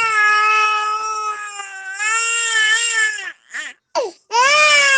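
An infant crying: a long wail of about three seconds, two short breathy sobs falling in pitch, then another loud wail near the end.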